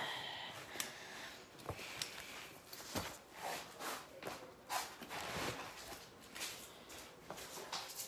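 Irregular rustling with a few light clicks and knocks, the sound of small objects being handled and rummaged through.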